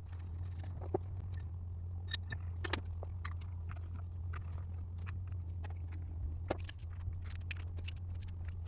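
Light metallic clicks and clinks of tools and small parts being handled during motorcycle work, scattered and coming more often in the second half, over a steady low hum.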